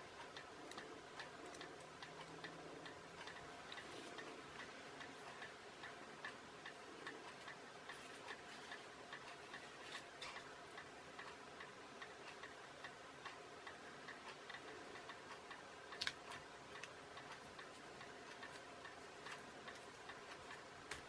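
Faint, regular ticking over low room tone, with one sharper click about sixteen seconds in.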